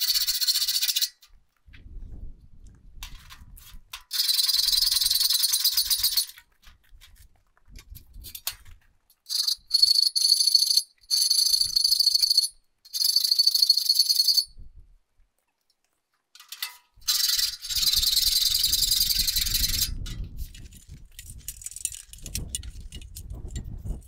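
Cordless impact driver running in about six bursts of one to three seconds, driving screws into light-gauge steel wall framing. Between the bursts come low knocks and scrapes of steel studs being handled.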